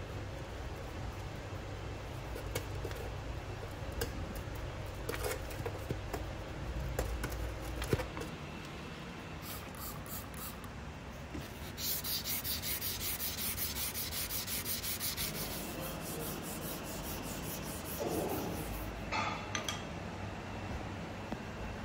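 Hand sanding: quick, even back-and-forth strokes of abrasive rubbing on metal or wood, about four strokes a second, in a run of a few seconds midway, with scattered light clicks and knocks of handling around it.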